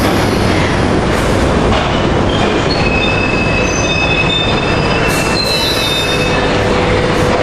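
London Underground Piccadilly line 1973 Tube Stock train running into the platform and slowing, with a steady rumble of wheels on rail. Several high wheel squeals join in from about two and a half seconds to about six seconds as it brakes.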